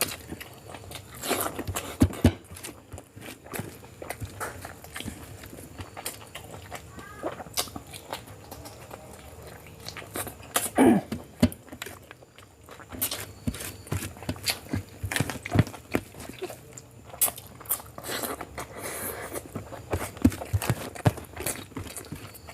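Close-miked eating: chewing and mouth smacking with many short, sharp clicks, and a short loud sound falling in pitch about eleven seconds in.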